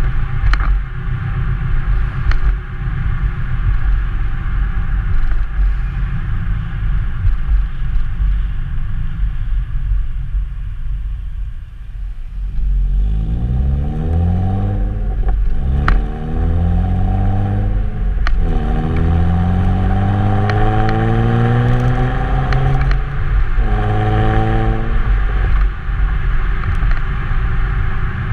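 2002 Nissan Maxima's 3.5-litre V6 and exhaust: a steady rumble while the car cruises, then, about halfway through, hard acceleration with the engine note rising steeply through the revs. The pitch drops at three upshifts of the six-speed manual.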